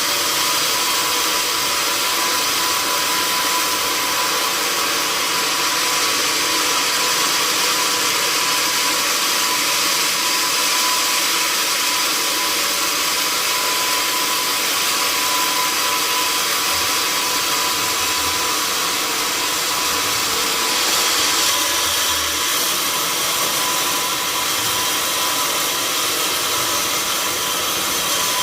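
Sawmill saw cutting through an oak log: a loud, steady rush of cutting noise with a constant whine that does not let up.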